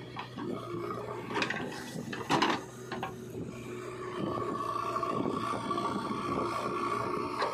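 JCB 3DX backhoe loader's diesel engine running under load. A few sharp knocks and scrapes of soil and the steel bucket come in the first half, the loudest about two and a half seconds in. From about four seconds, as the backhoe bucket digs into the ground, a steady hydraulic whine joins the engine.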